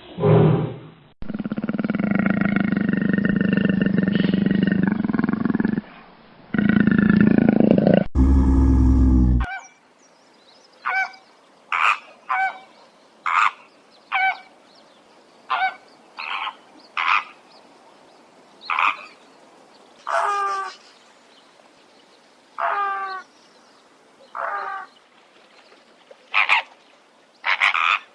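A run of different animal calls, one after another: a short honk-like call, then a long low drawn-out call of several seconds, a brief deep burst, and then a long series of short, separate calls about once a second.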